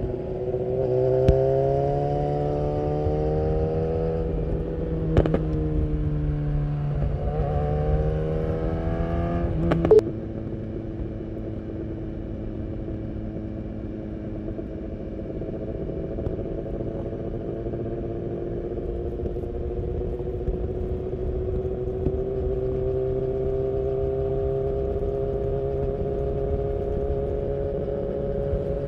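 BMW S1000R's inline-four engine through an Akrapovic full exhaust under way: revs climb, dip about five seconds in and climb again. About ten seconds in it drops to a quieter, steadier cruising note that rises slowly, over a rush of wind on the microphone.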